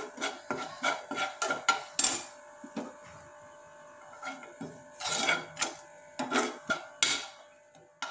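Metal spoon scraping and stirring spice powders (chili, coriander, turmeric) with fenugreek as they roast in a little oil in a non-stick pan, in irregular strokes with a quieter pause in the middle. This is the masala being sautéd on a low flame until its raw smell goes.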